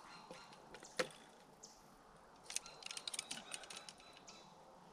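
Light clicking of a fishing rod and reel being handled: one sharp click about a second in, then a quick run of small clicks a little later.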